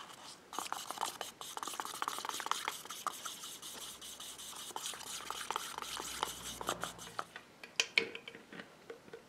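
A wooden stir stick stirring dye stain and paint thinner in a small plastic cup, ticking rapidly against the cup's sides; the stirring stops about seven seconds in, followed by a few sharp knocks.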